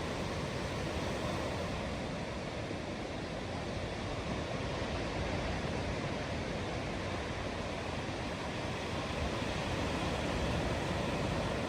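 Steady outdoor ambience: an even rushing noise with no distinct events.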